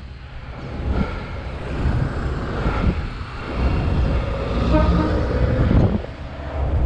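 Outdoor street noise with a heavy, uneven low rumble of wind on a body-worn camera's microphone as the wearer moves, and a few short tonal sounds about four to six seconds in.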